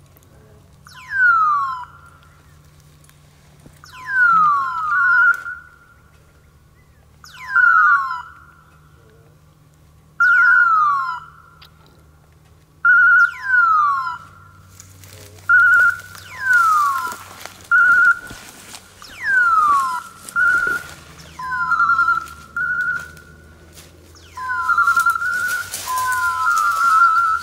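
Electronic beeper repeatedly sounding a falling screech with a steady beep, about every three seconds at first and coming faster after about fifteen seconds. Rustling in dry brush builds up in the second half.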